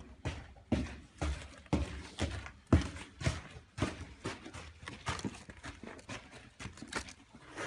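Clear plastic wrapping rustling and crinkling in irregular bursts, mixed with knocks as plastic-wrapped boxes of disposable lighters are handled.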